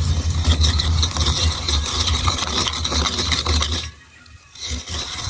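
Motor-driven coconut grater, its spinning serrated head scraping the meat out of a half coconut shell, with a harsh rasping scrape over a low rumble. The scraping stops for about half a second roughly four seconds in, then resumes.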